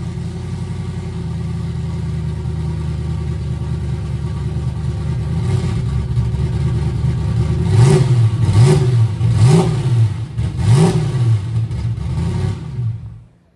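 Coyote 5.0 L V8 in a turbocharged race car running, then revved in four quick throttle blips. The engine sound stops near the end.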